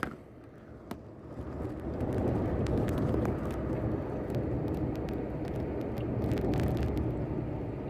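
Inside a moving car: a steady low rumble of engine and road noise, quieter for about the first second and a half and then even, with a few light clicks and rattles.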